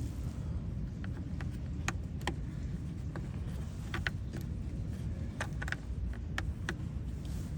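Light, irregular clicks and taps of hand work on a car's turn signal lamp assembly, about a dozen scattered through, over a steady low rumble.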